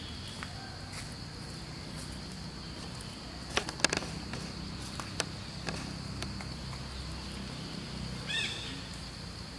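Steady high insect buzz in the background, broken about midway by a few sharp clicks, with a short high squeak near the end.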